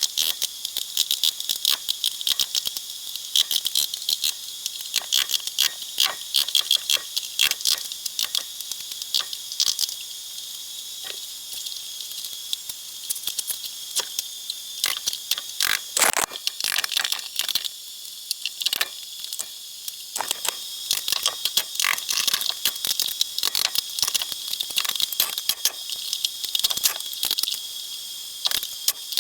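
Dense, irregular crackling and clicking of demolition debris, such as broken drywall and plaster, being pulled apart and handled.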